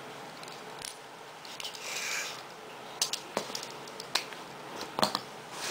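Scattered plastic clicks and snaps as the joints of a Transformers Megatron action figure are twisted and forced during transformation, louder a few seconds in, with a short soft hiss near two seconds in.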